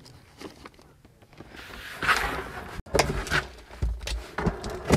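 Rummaging in a cardboard fibre shipping barrel: rustling of packed items, then a few knocks and thuds as the drum is tipped onto its side and reached into.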